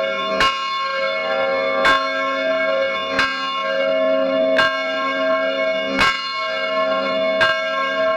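A church bell tolling, struck six times about one and a half seconds apart, each strike ringing on into the next.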